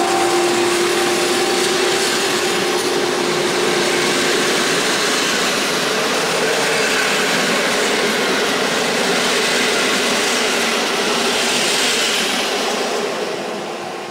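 Intercity passenger coaches rolling past, a steady rush of wheels on rails, with a steady hum in the first few seconds. The sound starts to fade near the end as the last coach goes by.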